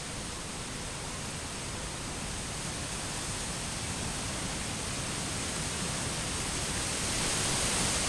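Steady rushing hiss of a distant waterfall, growing slowly louder.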